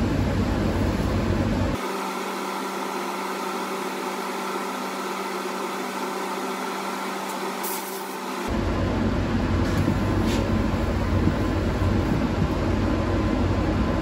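Steady rush of air in a powder coating booth while an RC-1 electrostatic powder coat gun sprays powder on compressed air. About two seconds in the deep rumble drops out for several seconds, leaving a thinner steady hum, then it comes back.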